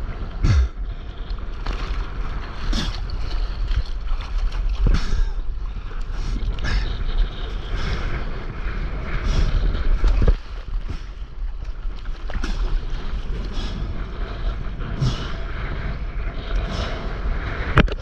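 Wind buffeting the microphone over water sloshing around a stand-up paddleboard, with sharper splashes every couple of seconds.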